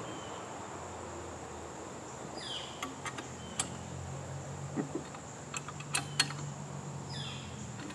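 Scattered small metallic clicks and taps as a bolt and nut are fitted by hand to a powder-coated steel target stand, most of them in the middle of the stretch. Behind them runs a steady high insect chorus and a low hum.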